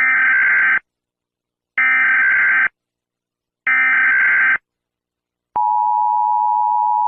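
Emergency Alert System header: three short bursts of warbling SAME data tones about a second apart, then the steady two-tone EAS attention signal starting about five and a half seconds in, marking the start of an emergency alert.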